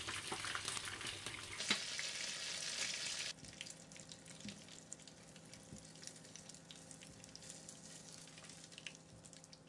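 Spring rolls deep-frying in hot oil in a pan, a steady crackling sizzle that drops suddenly to a quieter sizzle about three seconds in. A few light clicks come as the rolls are turned and lifted out with tongs.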